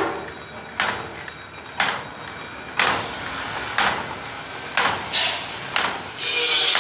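Cam-driven automatic wire hook forming machine running, with a sharp clank about once a second as each cycle strikes, over a steady mechanical rattle that grows louder near the end.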